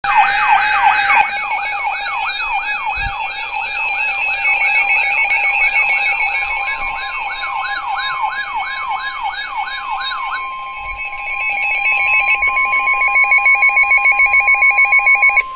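NOAA Weather Radio alert sounding for a severe thunderstorm warning: a rapid siren-like warble sweeping up and down about twice a second over steady tones for about ten seconds. It then gives way to a steady alert tone near 1 kHz with a pulsing beep, and cuts off suddenly.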